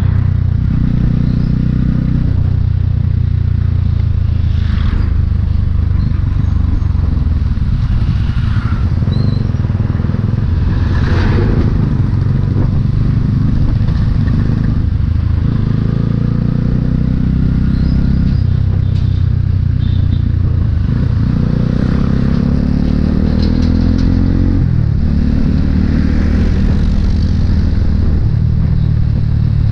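Motorcycle engine running as the bike rides along a road, its pitch shifting with the throttle, climbing for a couple of seconds about two-thirds of the way through and then dropping back.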